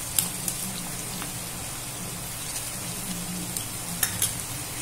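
Chopped onions and tempering spices frying in oil in a kadai with a steady sizzle, with scattered light clicks and two sharper ones about four seconds in.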